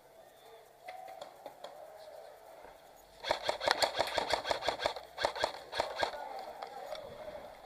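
Airsoft gun firing rapid shots in two quick bursts starting about three seconds in, a sharp run of clicks at several shots a second.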